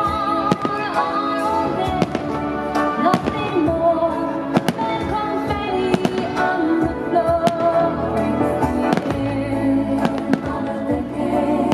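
Aerial fireworks shells bursting close by, with many sharp, irregular bangs, several a second at times, over loud music.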